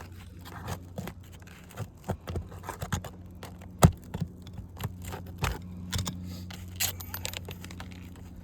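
A long-handled nail puller scraping and clicking as it is worked under architectural asphalt shingles to pry out roofing nails, with one sharp snap about four seconds in; the brittle, delaminating shingle tears as a nail comes out.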